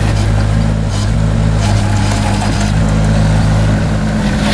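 Diesel engine of a JCB 8018 CTS mini excavator running steadily as its bucket spreads crushed-stone gravel, with a few brief scrapes and rattles of stone.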